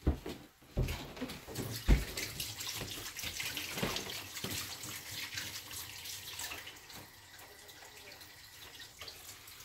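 Kitchen tap running into a sink, splashing, after a few knocks in the first two seconds; the flow grows fainter over the last few seconds.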